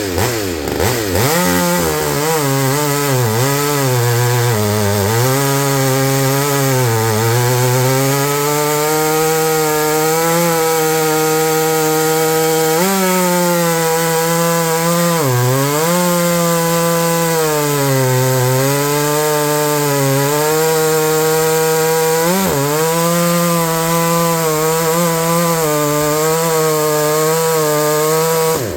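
McCulloch BP1 two-stroke chainsaw cutting wood, its first cut in 25 years. The engine pitch drops as the chain bites and comes back up, several times through the cut, then holds steady.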